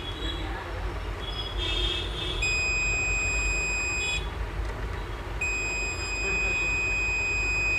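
A digital multimeter's continuity buzzer beeping as its probes are held on points of a laptop motherboard during a check for shorts. There are two long, steady, high-pitched beeps: one about two seconds in that lasts under two seconds, and a longer one from about five and a half seconds in. The beep means low resistance between the probe tips. A low, steady hum runs underneath.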